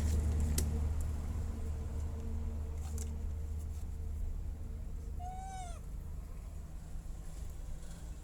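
A baby macaque gives a single short coo, a clear call that rises and then falls in pitch, about five seconds in, over a steady low hum.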